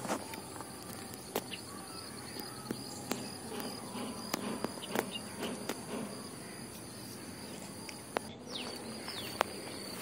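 Small water splashes and clicks as hands work in a plastic bait bucket held at the water's surface, over a steady high drone of insects.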